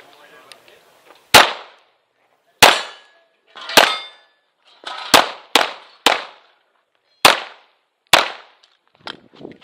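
Eight 9mm pistol shots from a Tanfoglio Stock 2 Xtreme loaded with 115-grain Winchester factory ammunition. The shots come roughly a second apart, with a quicker run of three about halfway through.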